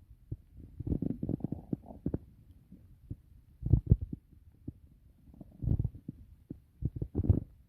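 Human stomach growling loudly: bursts of crackling, gurgling rumble, first a long run of them about a second in, then shorter ones roughly every one and a half to two seconds.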